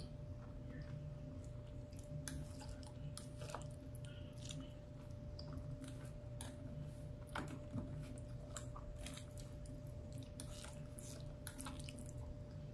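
A person chewing a mouthful of rice, beans and soft cooked vegetables: irregular soft, wet clicks and smacks. Under it runs a faint steady hum.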